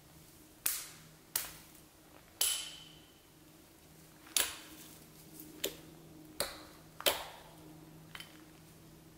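A hatchet chopping into wood: about eight sharp strikes at an uneven pace, the last one fainter. A faint steady low hum runs underneath.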